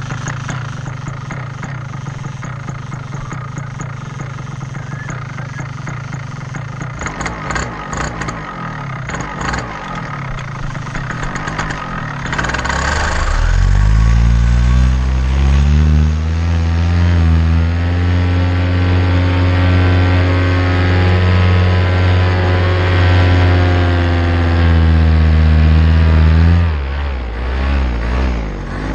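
Paramotor engine idling, then throttled up about 12 seconds in, its pitch rising into a loud, steady full-power run for the takeoff and climb. The power eases off briefly near the end.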